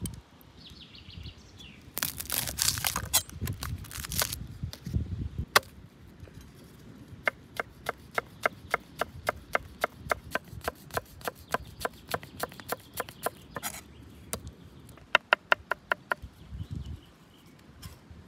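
Chef's knife chopping garlic on a thick wooden cutting board. About two seconds in there is a dense patch of crunching knocks. After that comes an even rhythm of sharp strokes, about three to four a second, and then a quicker run of strokes near the end.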